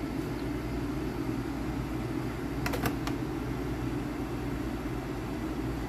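A steady low mechanical hum, with a few sharp clicks close together about halfway through.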